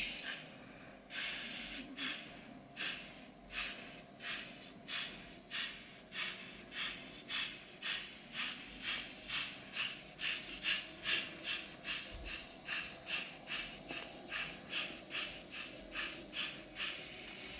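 Sound module in a model DB class 64 steam locomotive playing back a steam engine starting off. The exhaust chuffs come slowly at first and quicken to about two a second as it gathers speed. Near the end they give way to a steady steam hiss.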